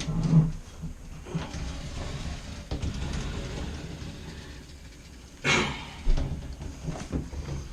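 Handling noises while a toilet is reset on its wax seal: a low thump at the start, a stretch of rustling and scraping, then a sharp scrape and knock about five and a half seconds in, with another thump just after.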